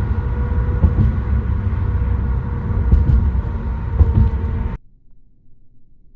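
Vehicle on the road, a loud low rumble of engine and road noise with a steady hum through it, ending suddenly near the end.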